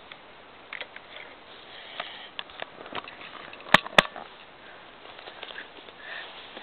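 Lego bricks being handled and pressed back onto a Lego gumball machine: light plastic rattles and small clicks, with two sharp clicks about a quarter second apart near the middle.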